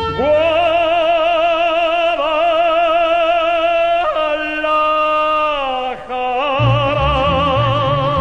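Mariachi ranchera song in which a male singer holds a series of long notes with wide vibrato. Each note steps to a new pitch about every two seconds, with a downward glide near the end. A guitarrón bass line comes in about six and a half seconds in.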